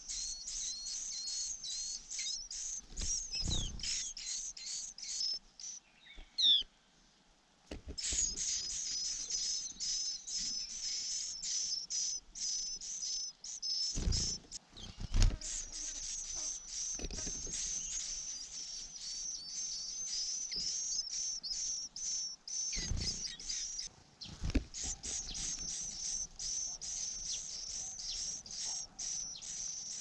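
White-eye nestlings, about eight days old, begging with a dense, rapid run of high-pitched chirps. The chirping breaks off for about two seconds some six seconds in, then resumes. A few short low thumps are mixed in.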